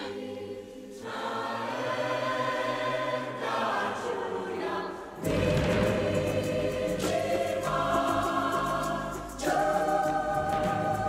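Film score with a choir singing sustained chords, swelling louder and fuller about five seconds in.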